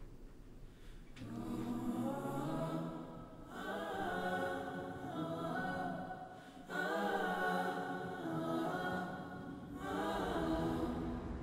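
Choral singing on the soundtrack: several voices holding long chords, in four phrases of about three seconds each.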